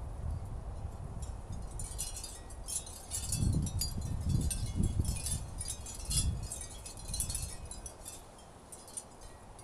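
Wind chimes ringing in a gust of wind, with many quick light strikes in the middle of the stretch. Wind buffets the microphone at the same time.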